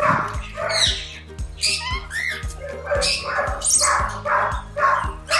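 Background music with a steady beat, over a run of short, loud animal calls, about two or three a second.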